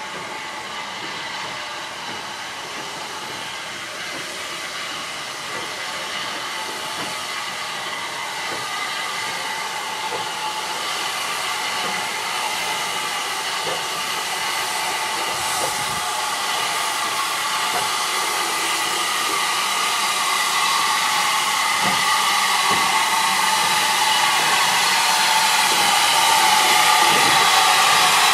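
Southern Railway U class steam locomotive No. 1638 coming in slowly, a steady hiss of steam with a whistling tone in it, growing louder as it nears, with a few faint clanks.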